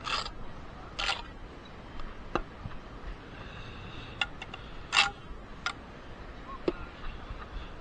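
Bricks clacking and scraping against each other as they are handled and stacked: a scatter of single sharp knocks and short scrapes at irregular intervals, the loudest about five seconds in.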